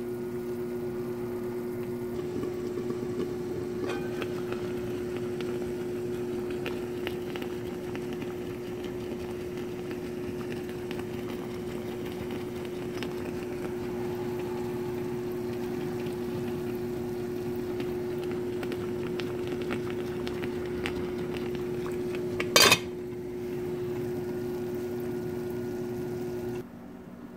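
Tomato sauce simmering in a pot, with faint scattered pops and ticks over a steady hum. A single sharp clatter of metal against the pot comes about three-quarters of the way through, and the hum cuts off just before the end.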